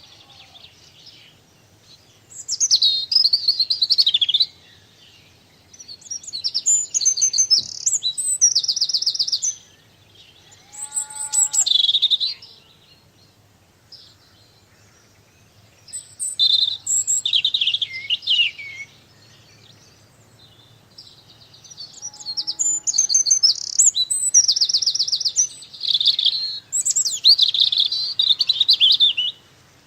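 A songbird singing loud, varied phrases of a couple of seconds each, some with fast trills, a few seconds apart.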